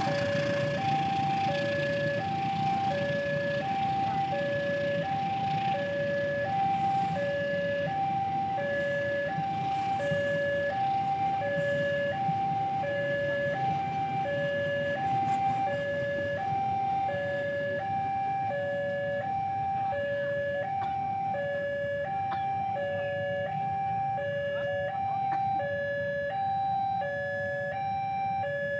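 Railway level-crossing alarm sounding a steady, evenly alternating two-note electronic warning tone. Beneath it is the low rumble of a passing passenger train, which eases off in the second half as the train clears.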